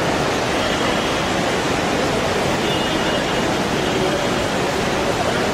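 Steady rushing din of a busy airport terminal, with faint voices mixed into it.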